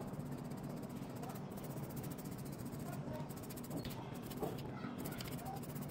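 Faint scratching of a small bristle brush sweeping dust from an iPhone 11's earpiece and speaker grilles, over a low steady hum.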